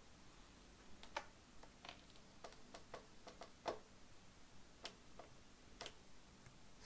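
Near silence broken by about a dozen faint, irregular clicks.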